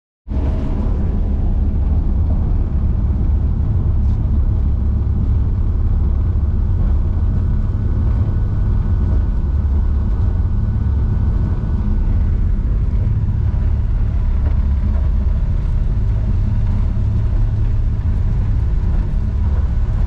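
Passenger ferry's engines running underway, heard inside the cabin: a loud, steady deep rumble with a faint steady whine above it.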